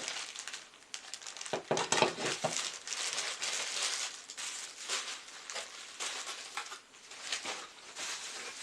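Packaging crinkling and rustling as it is handled, in an uneven run of crackles with a louder stretch about two seconds in.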